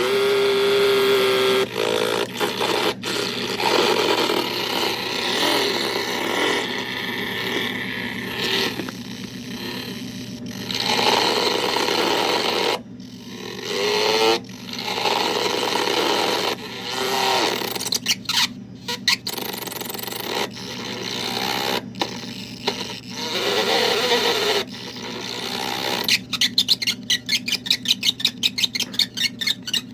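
Circuit-bent sound effects toy putting out glitchy, distorted electronic noises and warbling tones that cut in and out abruptly over a steady low hum. Near the end it falls into a fast stuttering pulse of about four a second.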